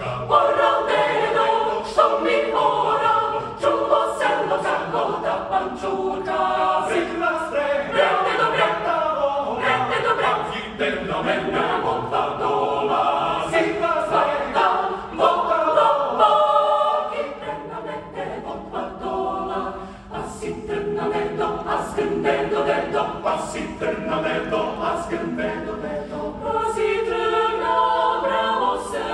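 Mixed chamber choir of women's and men's voices singing a cappella in dense harmony. It falls to a softer passage about two-thirds of the way through, then swells again toward the end.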